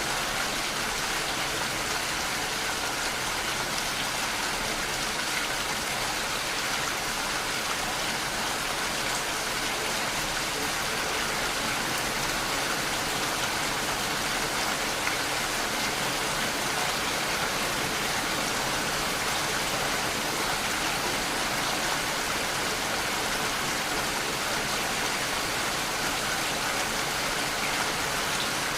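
Steady, even rainfall: a continuous hiss of rain falling and pattering on surfaces, with no change in strength.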